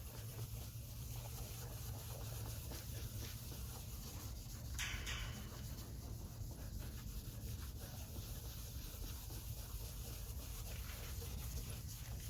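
Faint, steady hand-rubbing of a plastic headlight lens with headlight restorer compound, a continuous run of quick scratchy strokes over a low hum.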